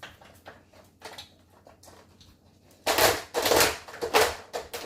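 A Weimaraner puppy working a plastic dog puzzle toy. After a few faint clicks, a run of loud clattering, scraping bursts comes about every half second as it noses and pushes at the drawers and pieces.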